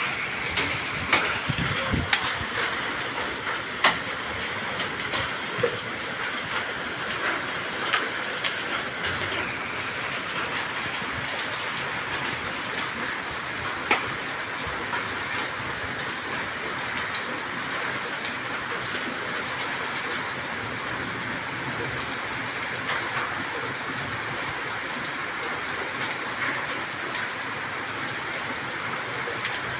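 Heavy rain pouring steadily, with scattered sharp knocks of hailstones striking, most of them in the first ten seconds or so.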